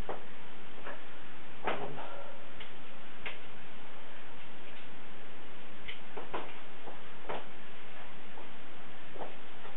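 A Brompton folding bicycle being folded by hand: about ten irregular sharp clicks and light knocks from its hinges, clamps and swinging frame parts, over a steady hiss.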